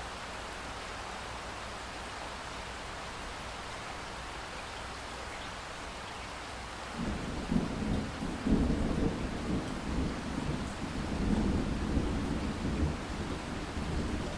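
Steady rain hiss, joined about halfway through by a sudden, loud rolling rumble of thunder that keeps rumbling unevenly over the rain.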